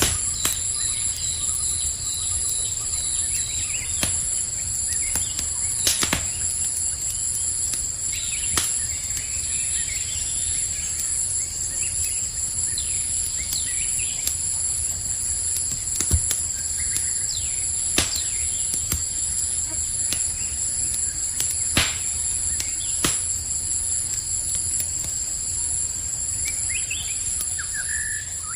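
Campfire crackling, with sharp pops every few seconds, over a steady high-pitched chorus of crickets and a few faint bird chirps. The sound fades out right at the end.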